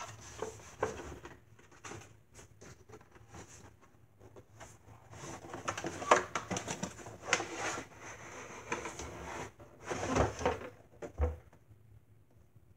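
Cardboard boxes and packaging being handled: intermittent rustling and scraping with small knocks, loudest about six seconds in and again around ten seconds, with a dull thump near the end.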